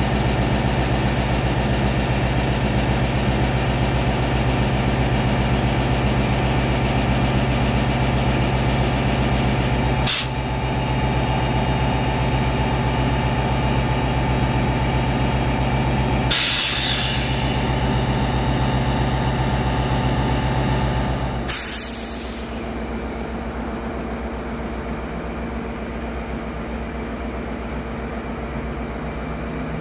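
VIA Rail EMD F40PH2 diesel locomotive, its 16-cylinder EMD 645 engine running with a steady drone while it stands still. The sound breaks off sharply three times, about a third of the way in, just past halfway and about two-thirds in; after the last break the drone is quieter and more distant.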